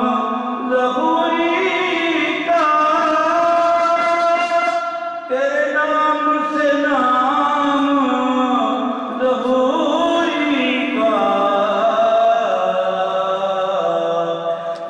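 A man's solo voice chanting devotional verse from a book into a microphone, unaccompanied, in long held melodic lines that glide between notes, with a short breath break about five seconds in.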